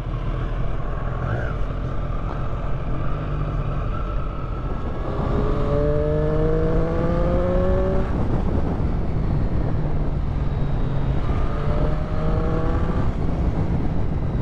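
Triumph Street Triple inline three-cylinder engine running on the move. Its pitch climbs as it accelerates about five seconds in and again near the end.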